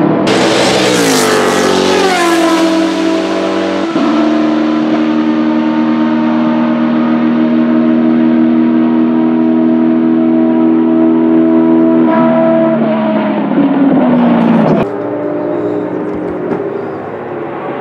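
Racing Judd GV4 4.0-litre V10 engine of a Dallara SP1 prototype at high revs. At first it is loud and its pitch falls over a couple of seconds. Then it holds a steady high note, sags in pitch near the end of that stretch, and is quieter and farther off after a sudden cut about fifteen seconds in.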